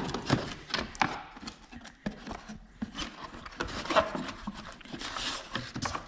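Handling noises: irregular light knocks, clicks and rubbing as a car heater core is picked up and handled.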